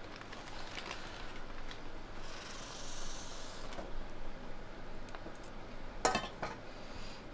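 A kitchen knife cutting through a soft block of cream cheese on a cutting board: quiet squishing of the cheese, with a few light taps of the blade on the board, the sharpest two close together about six seconds in.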